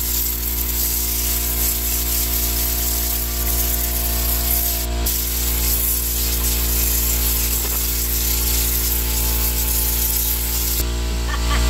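A Tornado-style compressed-air cleaning gun blasting air and all-purpose cleaner into car carpet: a loud, steady hiss of air over a steady hum. The hiss changes slightly near the end.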